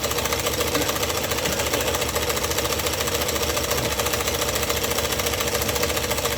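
Old variable-speed scroll saw running steadily, its reciprocating blade mechanism giving a rapid, even mechanical chatter.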